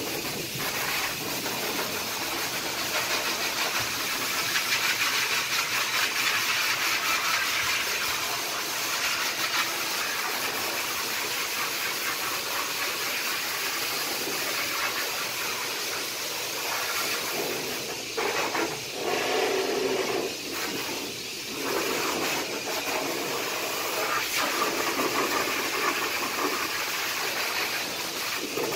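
Forced-air dog dryer at a pet-wash station, blowing steadily through its wide hose onto a wet dog's coat. Its hiss wavers and dips a few times about two-thirds of the way through as the nozzle moves.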